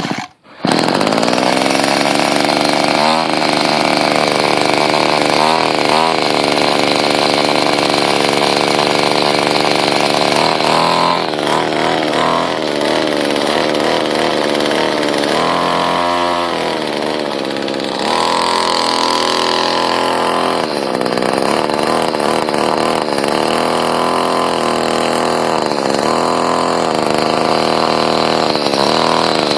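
Homemade RC car's two-stroke string-trimmer engine firing on a cold start with the choke hole covered. It catches about half a second in and then keeps running, revving up and down repeatedly.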